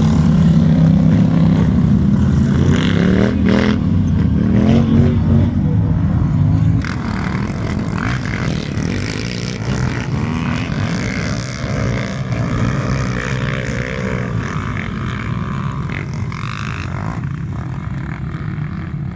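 Quad bike (ATV) engines running and revving, with the pitch rising and falling a few seconds in; the engine noise drops somewhat about seven seconds in and runs on at a lower level.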